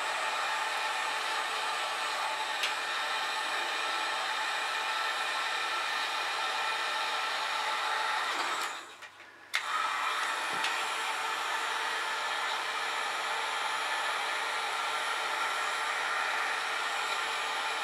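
Electric heat gun blowing hot air steadily onto a crimped wire connection. It cuts out for about a second partway through, then comes back on.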